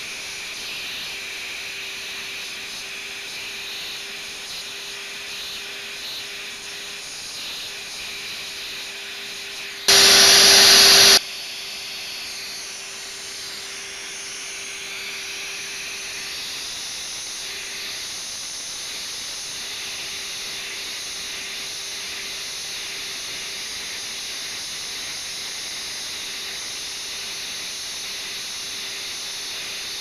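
Vacuum cleaner running steadily through a small homemade extension nozzle, sucking fluff out of a camera's mirror box: a steady hissing rush with a faint hum under it. About ten seconds in, a much louder rush lasts just over a second before the steady running resumes.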